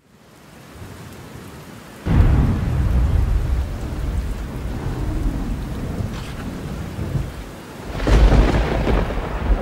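Thunderstorm: steady rain fading in, with a loud roll of thunder breaking in about two seconds in and a second thunder rumble near the end.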